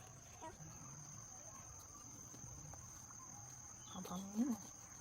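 Insects, likely crickets, droning on one steady high note, quiet, with a brief rising-and-falling voice-like call about four seconds in.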